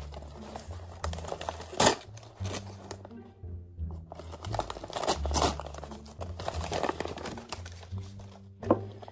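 Paper rustling and crinkling as a handmade paper blind bag is torn open and unfolded, with one sharper crackle about two seconds in. Quiet background music plays underneath.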